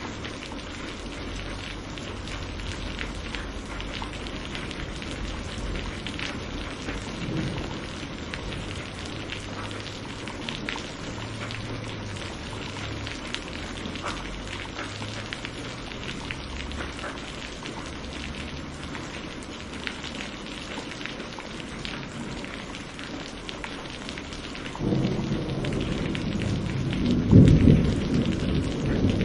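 Steady rain with a patter of drops. Near the end a loud, low rumble of thunder comes in and builds.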